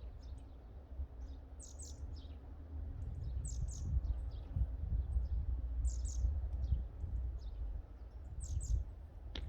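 Bird chirping: a short phrase of quick, high, falling chirps repeated about every two and a half seconds, over a steady low rumble.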